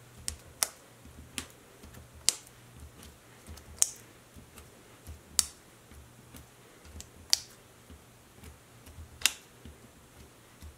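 Fingers pressing adhesive dots onto cardstock layers on a cutting mat: short, sharp clicks and taps at uneven intervals, about a dozen in all.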